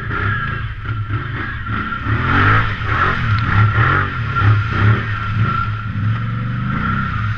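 ATV engine revving and working under load in deep mud, its pitch rising and falling several times in the middle, with a steady high whine over it.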